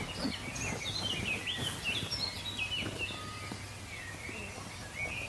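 Small birds chirping in the background, many short high calls coming thickest in the first three seconds and thinning out after, over a steady low hum of ambient noise.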